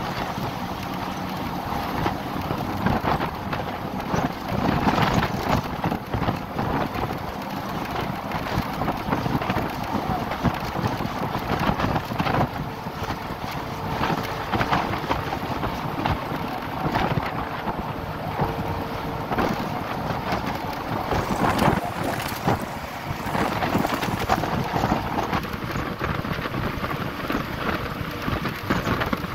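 Wind buffeting the microphone from a vehicle moving at speed, in uneven gusts over a steady rumble of road and engine noise.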